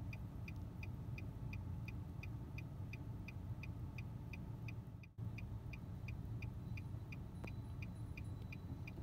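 A car's indicator ticker clicking evenly, about two and a half ticks a second, over the low steady hum of the idling car, heard inside the cabin.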